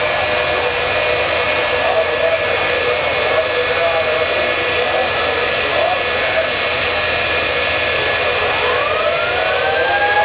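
Jet turbine engines of a jet-powered semi truck running with a loud, steady roar and whine while flames shoot from its exhausts. About eight and a half seconds in, a rising whine begins as the turbines are throttled up.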